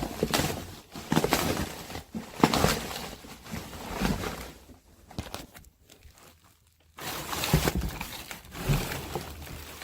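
Packaging being handled and unwrapped: crinkling and rustling with scattered knocks, dying away about five seconds in and starting again about two seconds later.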